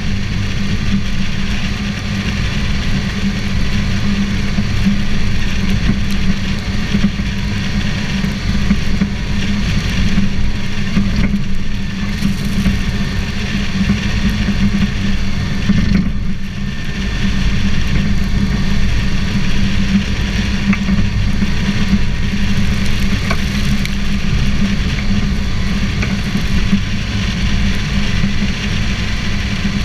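2001 Toyota Tacoma pickup driving on beach sand, heard from a camera inside the front wheel well: a steady, loud low rumble of tyres, wind and engine.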